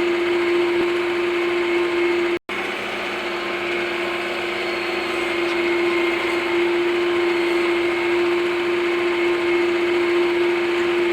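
Tractor running steadily under load: a constant mechanical hum with a steady whine over it, cut off for an instant about two and a half seconds in.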